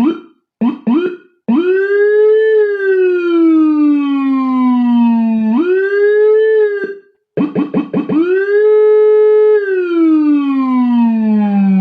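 Electronic siren from a locally made copy of a Whelen HHS 24-tone siren module. It opens with a few quick chirps, then a tone rises, holds briefly and slides slowly down. The tone jumps back up, cuts off about seven seconds in, restarts with a burst of rapid chirps, rises to a held top and slides slowly down again.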